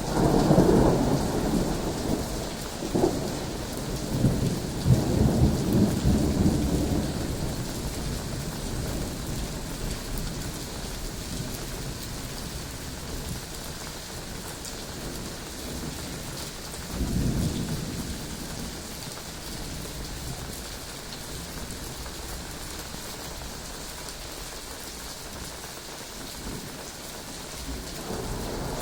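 Thunderstorm: steady rain hiss with rolls of thunder, a loud long rumble at the start lasting several seconds with sharper cracks in it, a shorter rumble about two thirds of the way through, and another beginning near the end.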